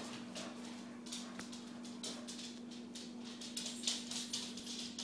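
Schnauzer puppy's claws clicking irregularly on a hardwood floor as it runs, with a steady low hum underneath.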